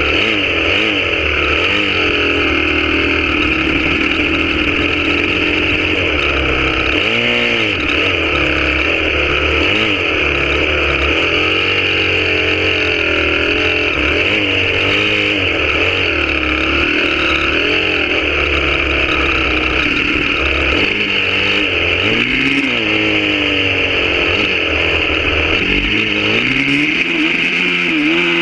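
Honda CRF250R dirt bike's four-stroke single-cylinder engine under way, heard from the rider's seat. The engine pitch rises and falls over and over as the throttle is worked, with a couple of sharp dips.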